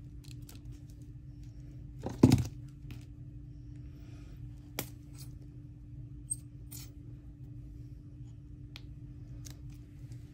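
Scattered clicks and taps of paper and craft supplies being handled on a tabletop, with one louder clatter about two seconds in, over a steady low hum.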